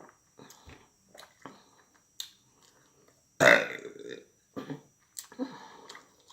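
A person burping loudly about halfway through, with a few softer short sounds before and after it.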